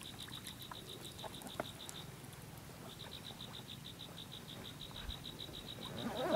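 A high-pitched animal trill of rapid, even pulses, about ten a second, which stops for about a second midway and then resumes. A few faint clicks sound alongside.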